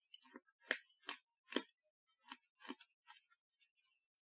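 Faint, irregular wet mouth clicks of a person chewing a chewy plum candy, about two a second, thinning out near the end.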